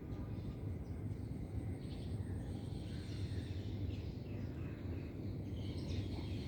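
Steady low background rumble with faint bird chirps scattered over it.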